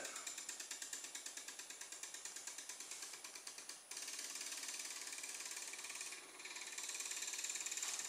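Very low-geared stepper motor driving a home-made toy car through rubber-band belts, stepping with a rapid, even mechanical ticking. About four seconds in, the ticking jumps to a faster, denser rate as the motor's speed is raised by remote.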